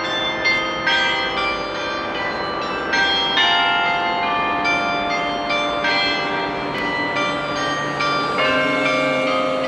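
Church bells ringing, many bells of different pitches struck one after another so their tones overlap and hang on.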